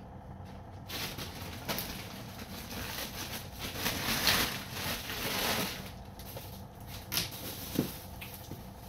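Plastic bag rustling and crinkling as it is handled, louder around the middle, with a few light knocks.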